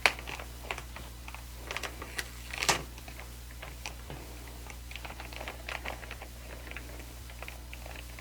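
Album packaging being handled and peeled apart: scattered light clicks and soft rustles, with a louder crinkle near three seconds in, over a low steady hum.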